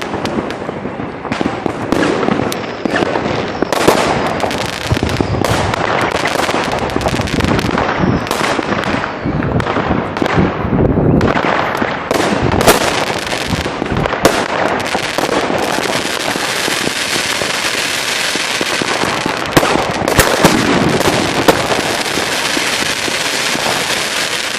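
Dense New Year's Eve fireworks and firecrackers going off without pause: rapid sharp bangs and cracks over a continuous crackle.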